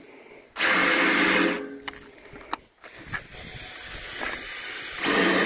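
DeWalt 20V cordless drill running in two bursts of about a second each, the first about half a second in and the second near the end, its bit driven through a cardboard hole template against a steel beam.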